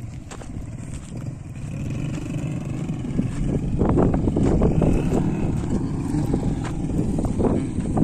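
A vehicle driving, its running noise growing louder from about two seconds in, with many short knocks from the middle on.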